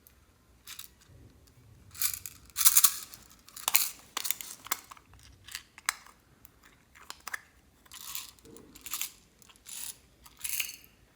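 Clear slime being squished and stretched by hand, giving irregular bursts of wet crackling and popping.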